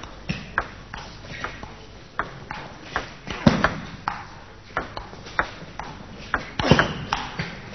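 Table tennis rally: the celluloid ball ticking sharply off bats and table, about two to three hits a second, with a louder, longer sound near the end.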